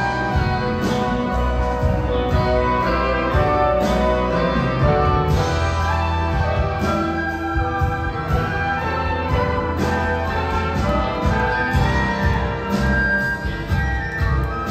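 Rock band and symphony orchestra playing an instrumental passage live: sustained orchestral notes over bass and a steady drum beat.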